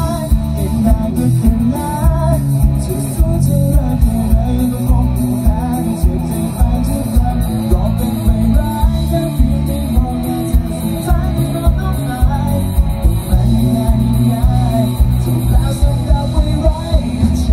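Live band playing loud, amplified music: a singer over guitar and a drum kit keeping a steady beat.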